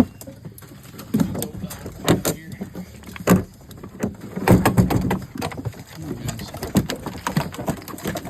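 Irregular clanks, knocks and clicks of dog gear and a truck rig being handled as hunting hounds are let out and rigged.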